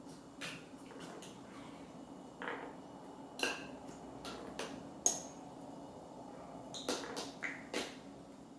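A utensil scraping and tapping against a glass bowl while soaked bread mixture is pushed into the Rollie egg cooker's tube. Scattered light clicks and knocks sound irregularly, over a faint steady hum.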